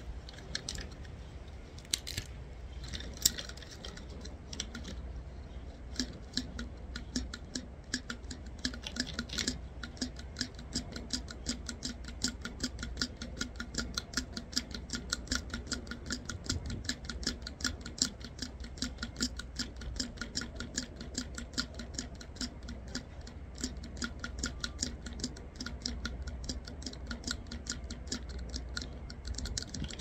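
Pinecone scales being scraped, giving rapid, even clicks that come thick and steady from about six seconds in, over a low steady rumble.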